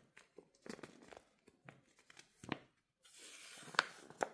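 Paper cash envelopes being handled: faint scattered rustles and light taps, then a longer rustle with two sharp clicks near the end.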